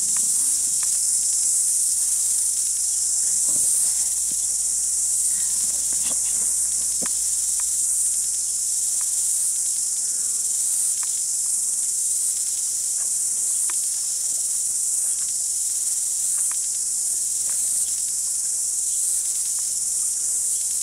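A chorus of summer insects making a steady, high-pitched drone, with a few faint clicks scattered through it.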